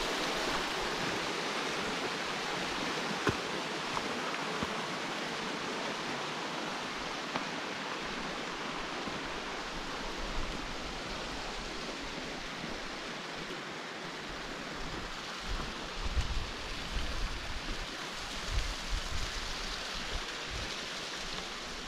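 Steady rushing of running water, slowly fading, with a few light clicks. In the last several seconds irregular low thumps and rumbles come in on the microphone.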